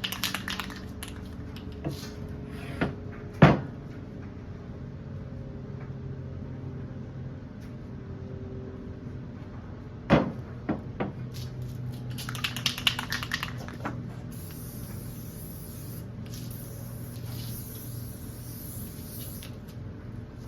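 Handling knocks: two sharp clunks of parts and a spray can being moved, then a short rapid clatter. After that comes the steady hiss of an aerosol spray paint can spraying, with brief breaks, for the last third.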